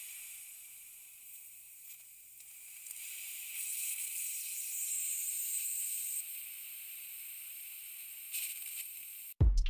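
A steady high-pitched hiss with nothing in the low end, louder from about three and a half to six seconds in. Electronic music with heavy bass beats cuts in just before the end.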